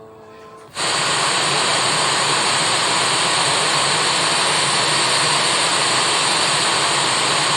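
Analog television static: the loud, even hiss of an untuned channel, cutting in suddenly under a second in after a faint snatch of programme sound.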